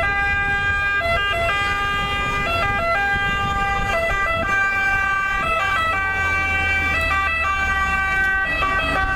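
Ambulance two-tone siren, switching back and forth between a high and a low note, with a low rumble underneath.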